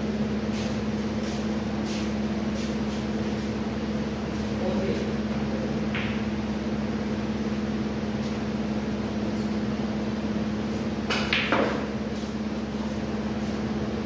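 Snooker balls struck and colliding on the table: a light click about six seconds in and a louder clack of balls around eleven seconds, over a steady low hum.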